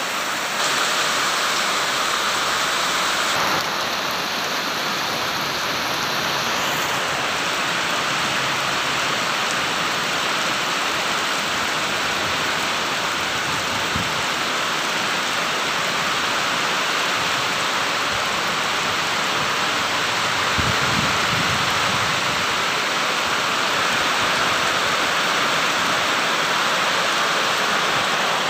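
Heavy downpour: a steady, dense hiss of rain falling on plants, concrete and standing water, slightly louder for the first few seconds.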